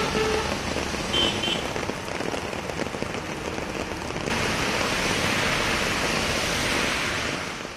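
Heavy rain pouring down on a wet road with traffic passing through it. The sound is a steady, dense hiss that changes at a cut about four seconds in and fades out near the end.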